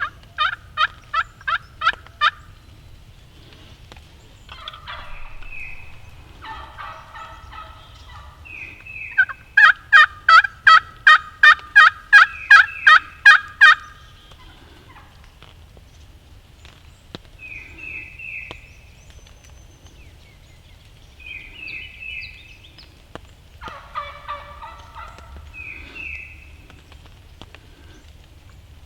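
Turkeys calling: a run of evenly spaced yelps at the start, then a longer, very loud run of about fourteen yelps in the middle. Rolling gobbles come in between the runs and again near the end.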